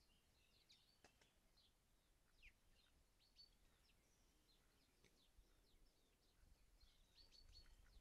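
Faint chirps and twitters of small songbirds, many short overlapping calls, over near silence.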